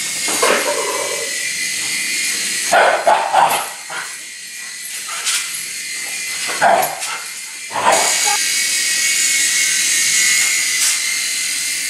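Shiba Inu barking in a handful of short, loud bursts over the steady high whine of a small remote-control toy helicopter's motor and rotor.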